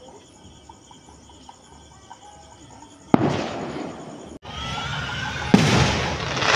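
Two sharp firecracker bangs about two and a half seconds apart, each trailing off over about a second, the second over steady background noise.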